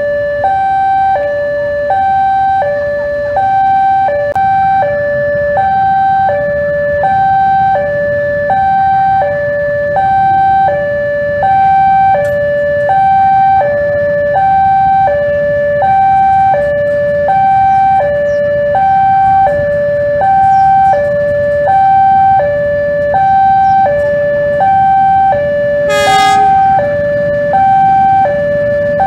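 Railway level-crossing warning alarm sounding a steady electronic two-tone high-low cycle, about one pair a second: the crossing is closed for an oncoming train. A diesel locomotive's engine rumbles underneath as it approaches, and a short horn-like blast sounds about 26 seconds in.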